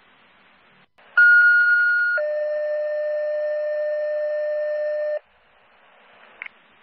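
Fire dispatch two-tone sequential page over the radio: a higher tone for about a second, then a lower tone held for about three seconds, alerting a fire station to a call, over radio hiss.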